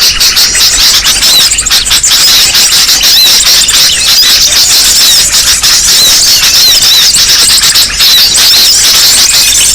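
Dense, loud chorus of many small birds chirping and twittering at once, with short high-pitched calls packed together without a pause. It is a bird-lure recording of noisy small birds, used to draw wild birds in.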